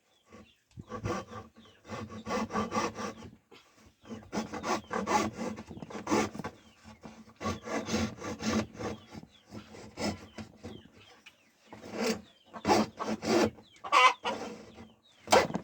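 Hand rasping or sanding of a small wooden piece: quick back-and-forth strokes in three runs, with short pauses between them.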